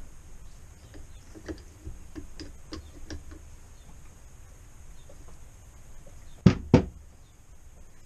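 Light metal clicks of a 24 mm spanner working the upper nut loose on a RockShox Recon fork's air-spring leg, then two sharp knocks close together about six and a half seconds in.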